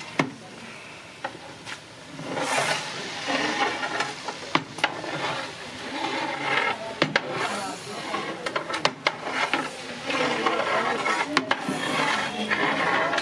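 Long-handled metal ladle stirring a large pot of chopped okra: repeated scraping strokes with sharp clicks where the metal knocks the pot.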